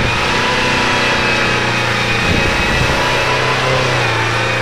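Jeep Cherokee's engine held at steady revs as it churns through deep mud.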